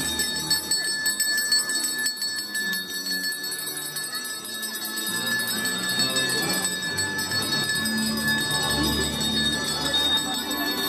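Handheld school bell rung continuously with a rapid steady jingle: the ceremonial first bell that opens the school year, heard over music.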